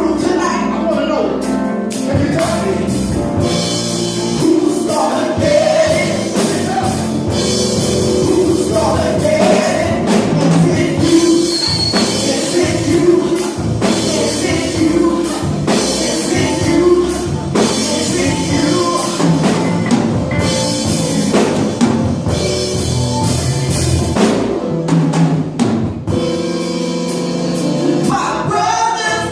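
Gospel worship music: singing over a full band with drum kit and instruments.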